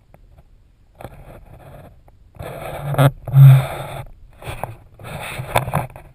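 A person crawling over the plastic vapour barrier on a crawlspace floor: crinkling and scraping in bursts, with a short low grunt about three seconds in, the loudest part.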